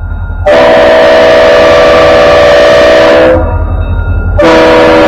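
Alabama & Gulf Coast Railway diesel locomotive's multi-chime air horn sounding a long blast and then, after about a second's pause, a shorter one, very loud at close range as the engine nears the road crossing. A low engine rumble is heard in the gap between blasts.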